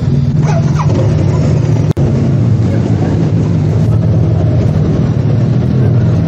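Motorcycle engine running steadily at low speed as a low hum, with road and wind noise. The sound drops out for an instant about two seconds in.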